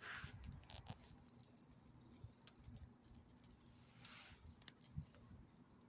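Faint light clicks and jingling from a small dog's collar tag as it noses around in gravel, with two short rustles, one at the start and one about four seconds in.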